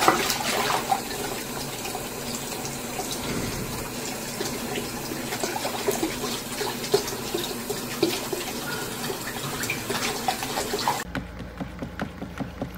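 Tap water running steadily into a bathroom sink, with irregular small splashes as a cat paws at the stream. The running water cuts off abruptly near the end, giving way to quieter soft repeated tapping.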